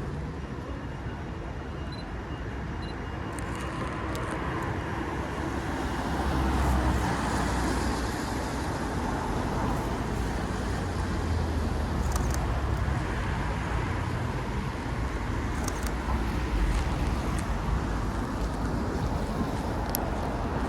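City street traffic: cars passing with tyre hiss on a wet road, the noise swelling about six seconds in as a vehicle goes by. A few faint clicks are scattered through it.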